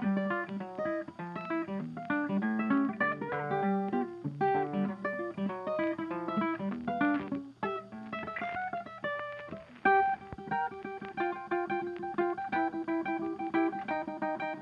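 Background music: a plucked acoustic guitar rag with quick picked notes.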